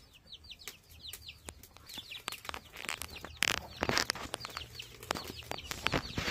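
Chicks peeping: many short, high, downward-sliding peeps repeating steadily, with a couple of brief rustles around the middle.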